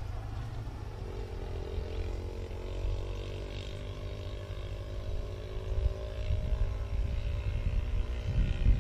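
A distant engine drones steadily, its pitch drifting slowly upward, over a low rumbling noise on the microphone that grows stronger near the end.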